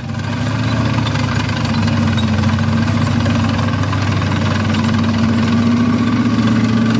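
Heavy engine, in the manner of a tank engine sound effect, starting up and idling steadily with a fast, even pulsing rumble; it swells over the first second and then holds level.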